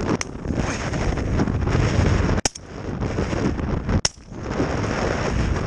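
Shotgun shots fired at passing geese: a lighter crack just after the start, then two loud shots about a second and a half apart. Wind buffets the microphone throughout.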